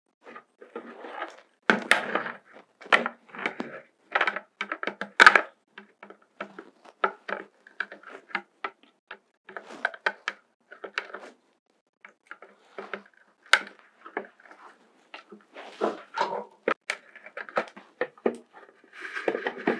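Knife tip scraping and picking at the plastic around holes in a plastic bucket's bottom: irregular scrapes and clicks. It is trimming off the melted plastic burrs left where the holes were burned through with a red-hot wire.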